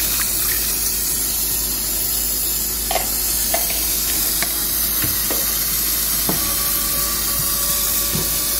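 Milk poured from a carton into a pot of potatoes in butter sauce, then a few light clicks of a utensil against the pot, over a steady hiss.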